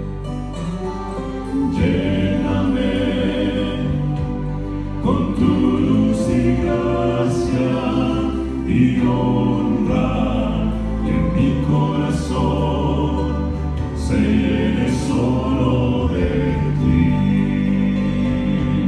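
Male vocal quartet (first and second tenor, baritone and bass) singing a hymn in close harmony into handheld microphones, with the voices holding and changing sustained chords together.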